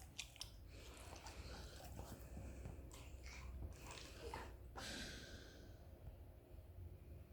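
A dog snoring and snorting faintly, irregular breaths with a few small clicks.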